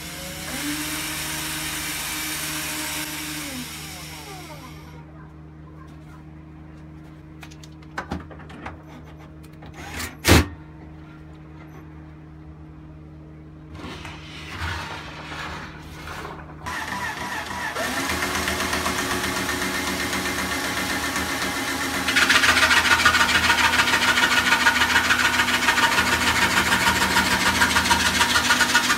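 Bosch PSR 14.4 cordless drill driving a homemade wooden scroll saw: the motor spins up, runs for about three seconds and winds down. After a few knocks, one of them sharp, it spins up again. From about two-thirds through, the blade saws plywood with a fast, even rasping.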